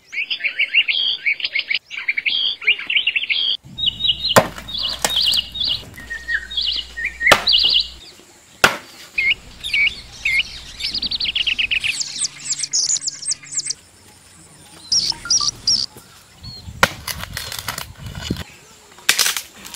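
Small birds chirping and calling in quick, repeated short notes, with a few sharp knocks between them and a rough scraping noise near the end.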